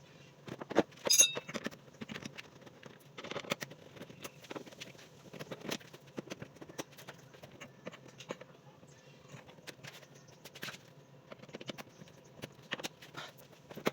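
Irregular clicks, knocks and light handling noises from hand tools and parts being worked, with one sharper metallic clink about a second in.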